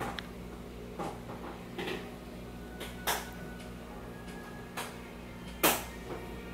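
About six short, scattered clicks and knocks over a steady low hum, the loudest about five and a half seconds in.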